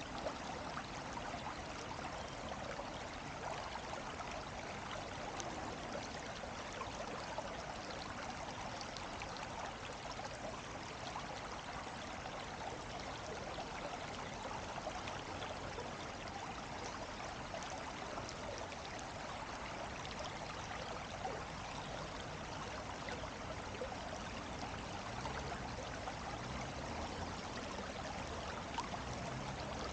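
Running water: the steady, even rush of a stream flowing, with no other sound standing out.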